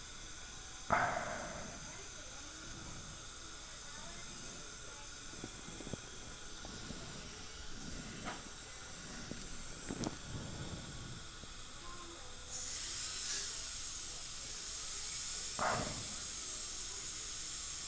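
High-speed dental handpiece with its burr and water spray hissing steadily while cutting through an implant abutment; the hiss grows louder and higher about two-thirds of the way in. A few short knocks of instruments.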